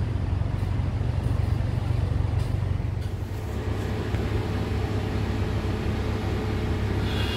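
Steady low rumble with an even hiss of outdoor ambience, cutting off abruptly just after the end.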